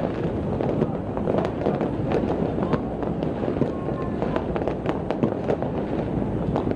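Many fireworks going off at once across a city: a dense, irregular crackle of pops and bangs, several a second, with no let-up.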